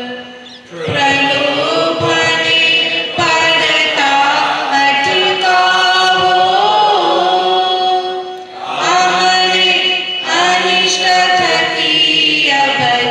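Several voices singing a slow devotional prayer song together, in long held phrases with brief pauses between them.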